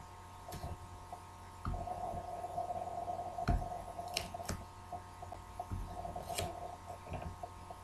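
Room tone with a steady low electrical hum and a few scattered faint clicks and knocks.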